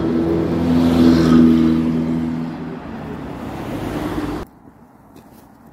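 A car engine passing close by, loudest about a second in and then fading, until the sound cuts off suddenly.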